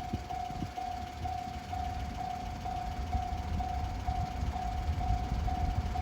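Japanese railway level crossing warning bell ringing, a single-pitched tone repeating evenly about twice a second, over a low rumble.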